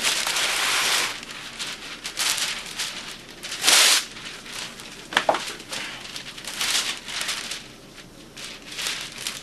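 Sheet material being handled, rustling and crinkling in short irregular bursts, the loudest about four seconds in.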